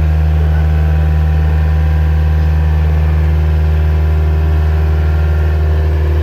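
An engine running steadily, a loud low drone with an even hum.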